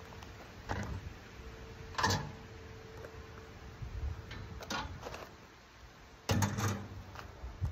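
Scattered metal knocks and clinks from a drum smoker being worked by hand: one sharp clink with a short ring about two seconds in, and a quick cluster of knocks near the end.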